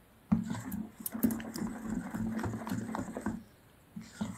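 Metal spoon stirring a runny flour-and-semolina batter in a stainless steel bowl, scraping and clicking against the bowl in a quick, busy rhythm for about three seconds before stopping.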